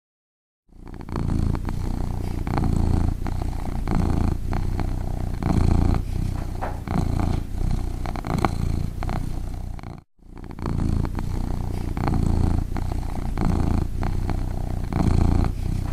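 Cat purring close to the microphone: a low, continuous rumble that swells and eases in a slow, breath-like rhythm. It starts after a moment of silence and breaks off briefly about ten seconds in.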